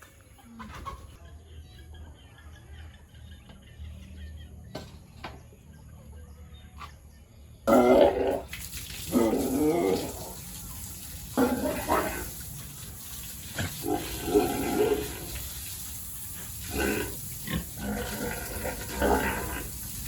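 Pigs squealing in loud, repeated bursts that start abruptly about a third of the way in. Before that there are only a few faint knocks over a low hum.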